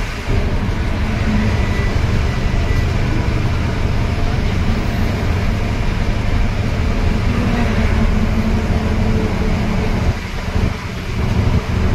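Steady engine drone and road noise inside the cabin of a GSRTC bus cruising on a highway, dipping briefly about ten seconds in.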